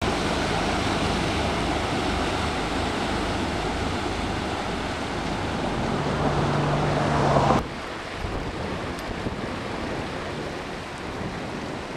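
Motor cruiser's propeller wash churning the water, heard as a steady rushing mixed with wind on the microphone, with a low engine hum. About two-thirds of the way in, the loud rushing cuts off suddenly, leaving a quieter wash.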